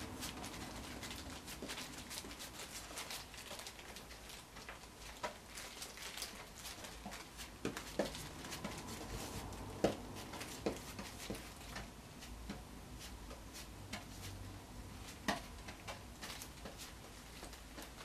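A brush spreading a wet finish over a wooden surfboard deck: many soft, irregular clicks and ticks of the bristles on the wet wood, with a few sharper taps.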